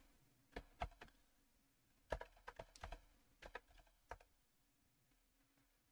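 Faint computer keyboard typing: a few separate keystrokes, a quicker run about two seconds in, and a last few taps before it stops about four seconds in.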